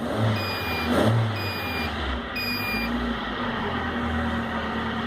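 Chery QQ engine started with throttle, surging twice in the first second or so and then running on steadily. The engine has a fault: it starts and dies unless it is given throttle. A short beeping tone repeats about once a second for the first three seconds.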